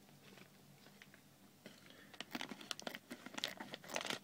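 Small plastic polybag of toy parts crinkling and crackling as it is handled and opened. It starts about halfway in, after a quiet stretch.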